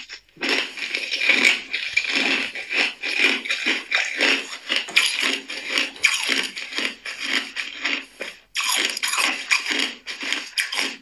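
Ice being chewed with the mouth closed: a dense, uneven run of rapid crunches and cracks. There is a brief pause just after the start and another about eight seconds in.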